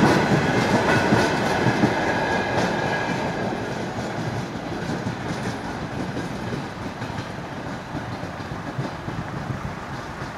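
A freight train of empty railway tank cars rolling past on steel rails, its wheels clicking over the rail joints. The last cars clear the crossing in the first few seconds, and the rumble then fades steadily as the train moves away.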